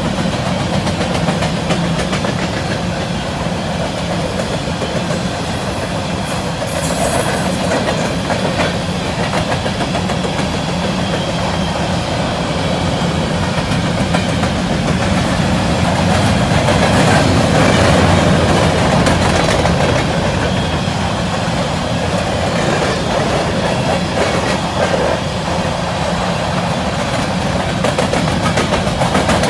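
Covered hopper cars of a freight train rolling past: a steady rumble of steel wheels on rail with clicking over the rail joints, and a brief high squeal about seven seconds in.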